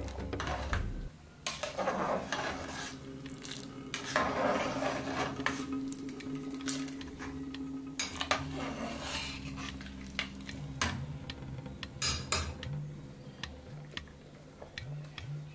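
Metal spoon and ladle stirring pea soup in an aluminium pot, with the liquid sloshing and the utensils clinking and knocking against the pot's side several times.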